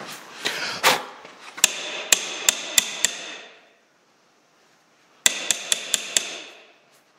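A steel hydraulic valve part from a John Deere 710 tractor struck against a bench vise: sharp, ringing metal knocks, a run of five, a pause of about two seconds, then a quicker run of about five more. The tapping is meant to jar loose a stuck internal plug.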